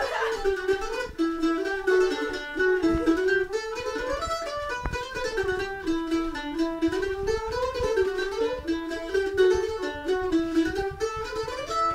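A mandolin playing a lively tune, a running melody of plucked notes that goes on without a break. There is a single sharp knock about five seconds in.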